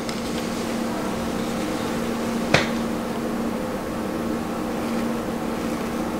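Steady machine hum, like a fan or appliance running, with one sharp click about two and a half seconds in.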